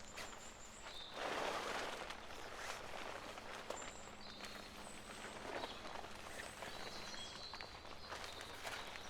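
Woodland ambience with scattered short bird chirps, over close rustling and light clicks and knocks, with a louder rustle about a second in.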